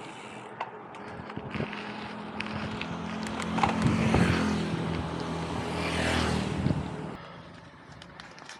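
A motor vehicle passing on the road, its engine tone and tyre noise building, staying loudest for a few seconds mid-way, then fading away after about seven seconds.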